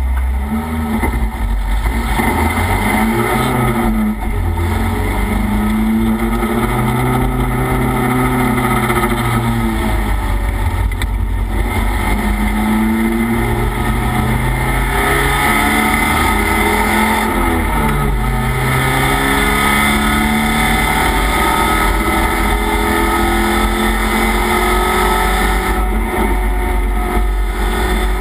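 Race car engine heard from inside the caged cockpit, its pitch climbing and falling again and again as it accelerates and lifts through corners. Underneath is a steady rush of road and wind noise.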